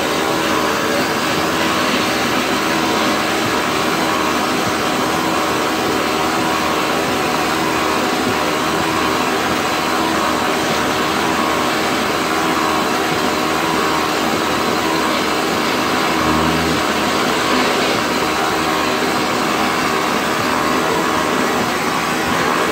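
Vapor Honing Technologies Weekend Warrior wet-blast cabinet in use: the blast gun spraying air and slurry, a loud, steady hiss with a hum under it. A brief low thump about sixteen seconds in.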